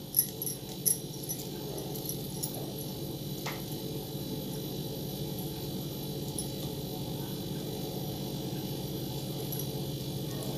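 Plastic craft wire being handled and pulled tight while weaving a keychain: a few light clicks and rustles in the first second or so, and one sharper click a few seconds in, over a steady low hum.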